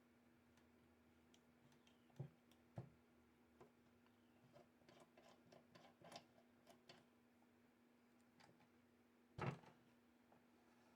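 Faint, scattered light clicks and taps, the loudest a single knock near the end, over a steady low hum.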